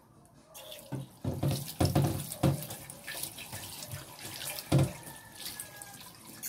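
Kitchen tap running into a stainless steel sink as a plastic cutting board is rinsed under it, the water starting about half a second in. Several sharp knocks, the loudest sounds, come as the board is handled in the sink.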